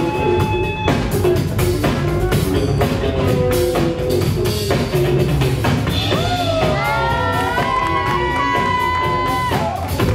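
Live band playing a steady groove on drum kit with electric guitar. About six seconds in, a lead line with sliding, bending notes comes in and holds until near the end.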